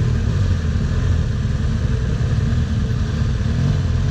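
BMW R1200GS Adventure's boxer-twin engine running under way, its revs rising and falling, over a steady rumble of noise.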